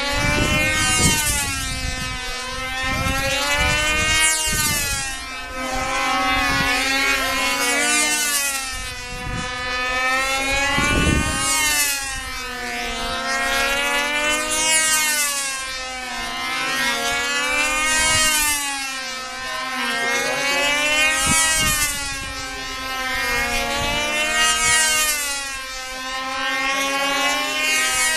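Control-line model airplane's small engine running at full speed, a high buzz whose pitch and loudness rise and fall about once every three and a half seconds as the plane circles the pilot on its lines.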